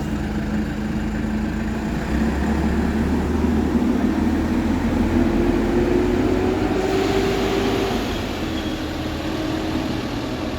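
A diesel vehicle engine pulling away: its note climbs steadily for several seconds as it gains speed, then eases off.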